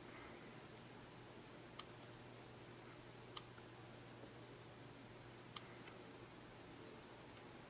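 Three short, sharp clicks, a second and a half to two seconds apart, from taps on a smartphone's touchscreen.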